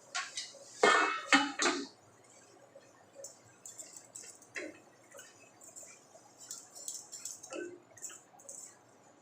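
A spatula clanking several times against a cooking pan about a second in, then lighter scraping and clinking of stirring in the pan.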